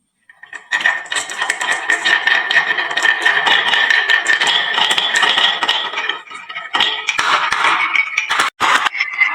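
Many glass marbles clattering and clicking down a wooden marble run into toy trucks: a dense, loud rattle that starts about a second in and breaks off briefly near the end.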